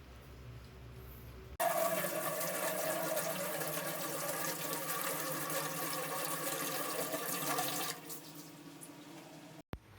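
Water running from a tap, starting abruptly about a second and a half in and stopping after about six seconds, followed by a short click near the end.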